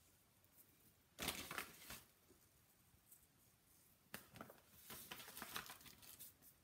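Crinkling and rustling of a plastic bag of glitter and glitter being handled, in two short bouts: one about a second in, and a longer one from about four seconds in.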